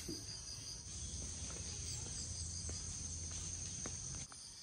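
Insects shrilling in a high pitch, pulsing at first and then a steady unbroken shrill, over a low steady rumble. Both drop away suddenly about four seconds in.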